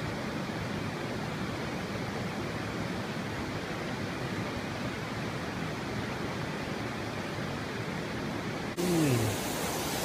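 Waterfall cascading over rock ledges: a steady, even rush of water. It cuts off abruptly near the end.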